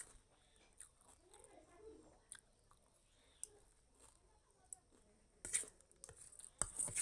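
A person chewing and crunching a mouthful of vermicelli mixed with puffed rice: soft, scattered crunches and small clicks. Two louder crunches come near the end.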